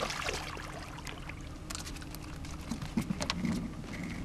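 Water splashing as a spotted seatrout is grabbed by hand at the surface and lifted over the side of the boat, followed by a few sharp knocks and low thumps of the fish landing and flopping on the boat deck.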